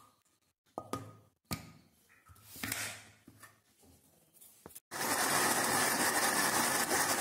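A few small clicks and scrapes as the steel jar is handled and its lid fitted, then about five seconds in an electric mixer grinder starts suddenly and runs steadily, blending rice flour into a jaggery and coconut paste.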